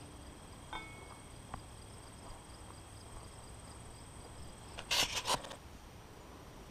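Faint insects chirping steadily in a field, a thin high ringing with a light regular pulse. About five seconds in comes a short cluster of three or four sharp rustling clicks, the loudest sound here.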